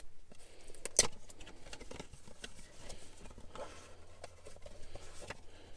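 Small cardboard box being opened by hand: light scraping and rustling of the flaps and paper insert, with one sharp click about a second in.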